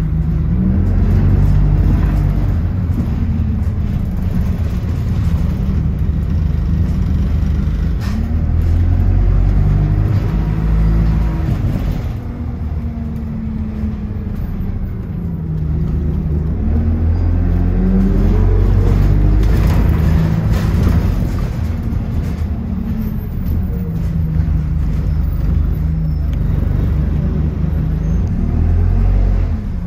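Bus engine running on the move, a low rumble whose pitch rises as the bus pulls away and drops back at each gear change, several times over. It eases off briefly before building again.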